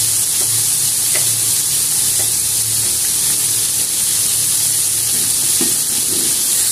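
Batter-coated shrimp deep-frying in hot oil in a wok: a steady, dense sizzle.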